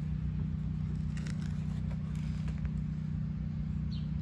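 A steady low mechanical hum runs throughout. Under it come faint scrapes and crackles of a hand trowel digging into grassy soil.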